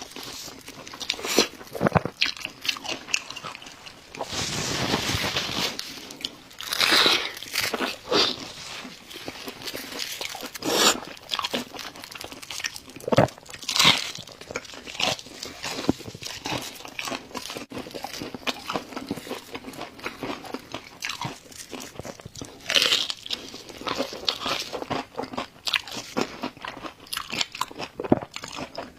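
A person biting and chewing crunchy food close to the microphone, with irregular crunches and wet chewing clicks and a longer noisy stretch about four seconds in.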